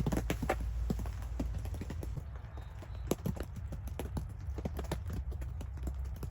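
Footsteps crunching through snow, an irregular run of short crunches several times a second over a steady low rumble.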